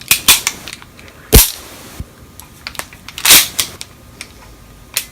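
Full-metal Elite Force 1911 TAC A1 airsoft pistol being handled, making sharp metallic clacks: two loud ones about a second and a half in and at about three and a third seconds, with lighter clicks around them.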